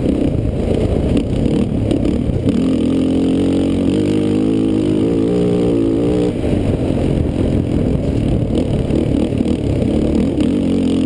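Race quad's engine running hard under throttle over a rough dirt trail, with rumbling wind and trail noise. About two and a half seconds in, the engine note settles into a steady held pitch for several seconds, then breaks up again into rougher running.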